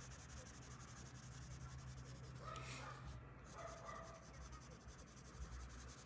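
Faint scratching of a coloured pencil shading on paper in quick back-and-forth strokes.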